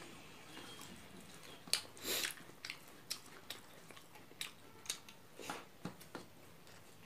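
A person eating rice by hand, close to the microphone: wet chewing and lip smacks heard as irregular short clicks, several a second, starting nearly two seconds in. Fingers can be heard working the rice in a metal bowl.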